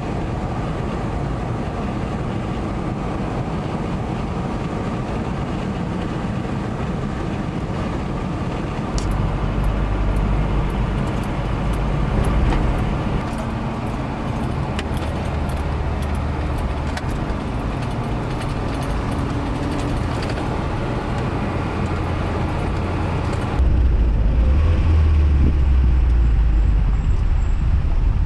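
Toyota pickup on the road, with steady engine and tyre noise heard from inside the cab and some scattered light ticks partway through. About 24 seconds in the sound changes abruptly to a deeper, heavier rumble with the highs cut off.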